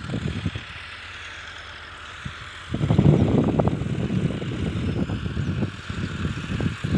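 Massey Ferguson 385 diesel tractor running steadily under load as it pulls a cultivator through the field. From about three seconds in, heavy irregular wind buffeting on the microphone adds a loud low rumble.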